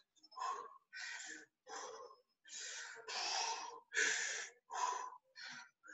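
A person breathing loud and hard from exertion mid-set, short forceful breaths in and out, about one every two-thirds of a second.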